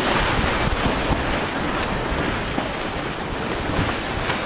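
Wind blowing across the microphone over the steady wash of water around a sailboat under way in open water.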